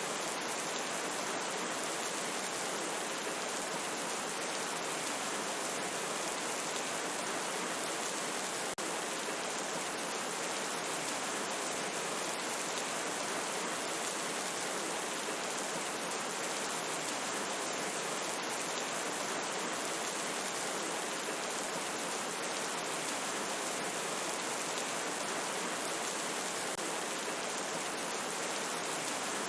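Steady rain falling, an even, unbroken hiss, with one momentary drop in level about nine seconds in.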